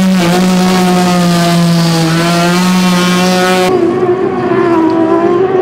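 Race boat's outboard engine running with a steady high note while the boat sits at the pontoon. About three and a half seconds in, the sound switches abruptly to race boat outboards passing at speed, their pitch wavering up and down.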